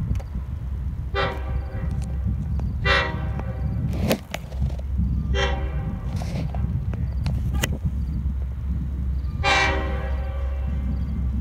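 Long Island Rail Road diesel locomotive's air horn sounding two long blasts, one short and one long over a steady low rumble: the standard grade-crossing signal of an approaching train.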